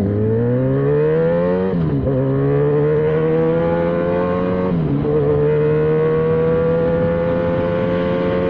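Motorcycle engine accelerating hard through the gears: its pitch climbs, drops at an upshift about two seconds in and again about five seconds in, then keeps rising slowly under full throttle.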